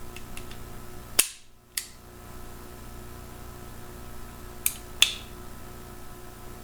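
Sharp metallic clicks from the Warnant revolver's action as it is worked: two about a second in, the first the loudest, and two more, closer together, near five seconds in.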